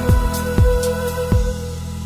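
Background music: a held melody note over a steady beat of low drum hits, the beat dropping out about one and a half seconds in.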